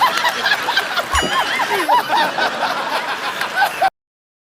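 Laughing sound effect: high-pitched snickering and giggling laughter in quick bursts that cuts off abruptly near the end.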